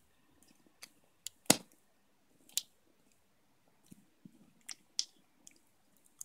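Small scattered clicks and ticks of hands twisting bare stranded copper wire around the metal terminals of taped-together electrolytic capacitors, with one sharper click about one and a half seconds in.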